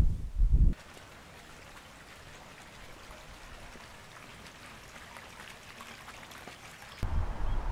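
Wind rumbling on the microphone at first, cutting off abruptly to the steady splashing patter of a small fountain jet falling into a garden pond; the wind rumble returns abruptly near the end and is the loudest sound.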